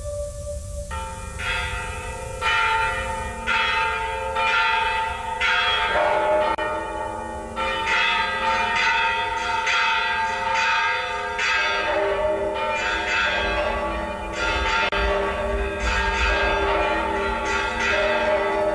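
Church bells ringing in a steady peal, about one stroke a second, each stroke ringing on into the next.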